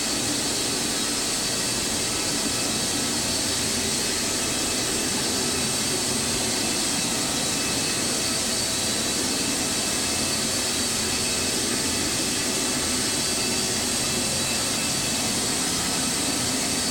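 Carpet-cleaning extraction machine running steadily: a constant vacuum rush with a steady high whine.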